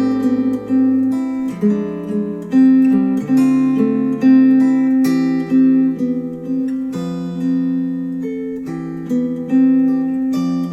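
Music with plucked and strummed acoustic guitar, chords changing every second or so, played back through Focal Chora 806 bookshelf speakers driven by a NAD C 338 integrated amplifier.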